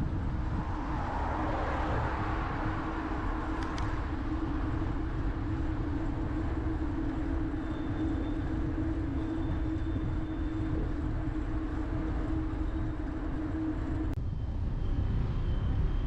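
Bicycle dashcam recording of riding along a city street: steady wind and road rumble with traffic, under a constant low hum. The hum stops and the background changes abruptly about fourteen seconds in.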